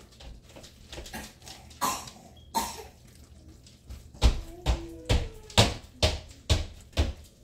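Utensil stirring a thick cheese sauce in a skillet on the stove, knocking against the pan about twice a second from about four seconds in, with a couple of single knocks before that, as the shaved cheese is mixed into the sauce.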